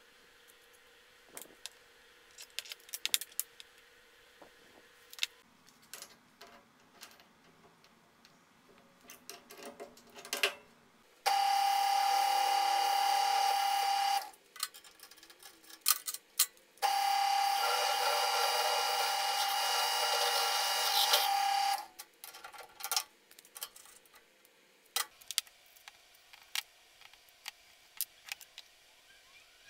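A machine drill running steadily as its bit cuts into 1/4-inch-wall square steel tube, in two stretches of about three and five seconds that start and stop abruptly. Light clicks and taps of tools and steel parts being handled on a workbench come before and after.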